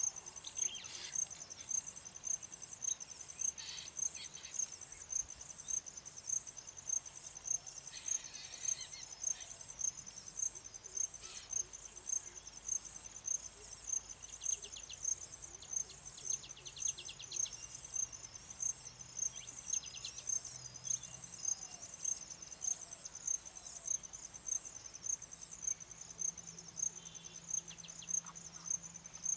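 An insect chirping steadily in a high pitch, about two chirps a second, with scattered short bird calls and trills.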